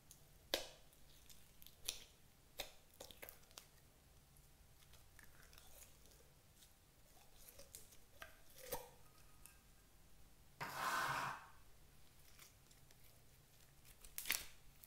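Sticky slime worked by fingers, poked and pulled out of a plastic jar: scattered wet clicks and pops, with one longer, louder squelch lasting about a second two-thirds of the way through.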